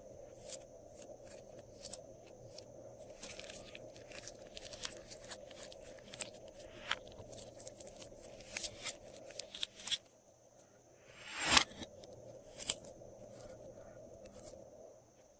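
Glossy slime being handled and mixed: a run of small sticky clicks and crackles, with one louder swishing rustle about eleven and a half seconds in.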